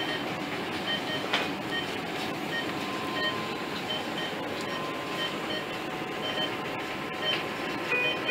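Steady rushing background noise of a room, with faint short high tones sounding now and then at a few different pitches.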